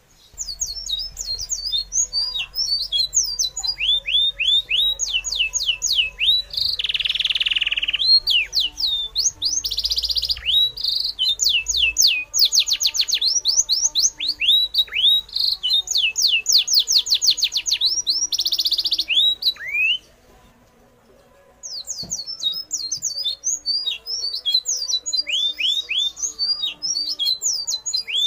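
Birds chirping: a fast run of high, quick downward-sweeping whistle notes with a few harsher squawks mixed in. It drops out for about two seconds partway through, then resumes.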